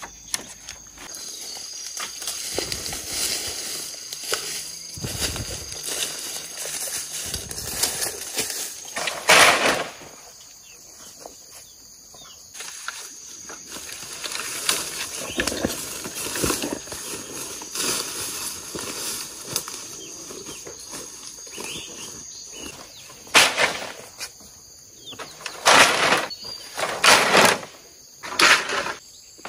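Freshly cut green bamboo being handled: poles and leafy tops rustling and knocking together, with several loud, sharp clattering knocks in the last few seconds.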